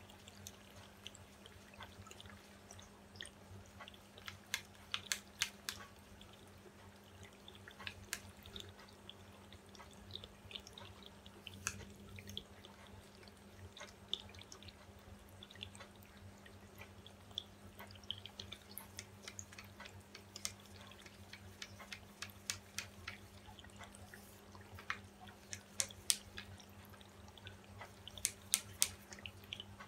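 Wooden craft stick stirring acrylic paint with pouring medium in a small plastic cup: scattered light clicks and taps of the stick against the cup, in short clusters, over a steady low hum.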